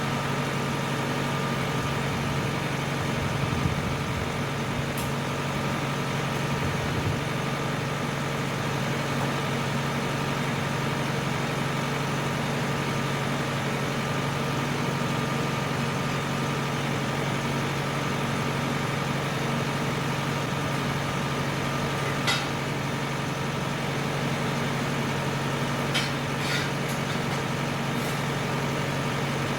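Farm tractor engine running steadily at an even speed, with a few short metallic clanks near the end.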